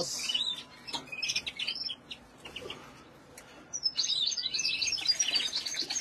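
Caged canaries and finches chirping and twittering in many short overlapping calls and trills. The singing is busy at first, thins to a lull in the middle and picks up again from about four seconds in. A brief rustle sounds right at the start.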